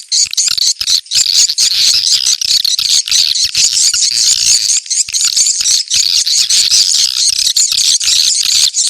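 Swiftlets twittering, many rapid high chirps overlapping in a dense, unbroken chatter: a swiftlet lure call used to draw swiftlets to a site.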